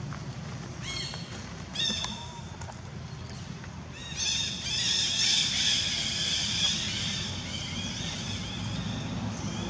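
Infant macaque screaming: two short shrill cries about one and two seconds in, then a long, loud, shrill scream from about four seconds in that trails off near the end.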